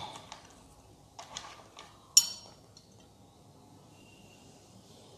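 Handling noise from a smartphone being picked up and adjusted: scattered knocks and rubbing, with one sharp, briefly ringing click about two seconds in.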